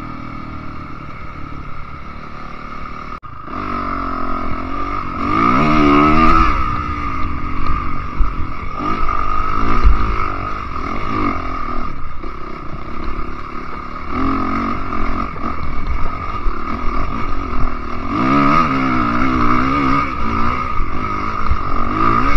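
Enduro dirt bike engine heard from on board, revving up and dropping back again and again as the rider works the throttle along a woodland trail, with occasional low thumps.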